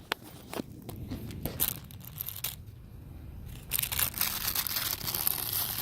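Packaging of a new O-ring being torn open and handled, tearing and crinkling: a few scattered clicks and rustles at first, then denser, steady crinkling over the last two seconds.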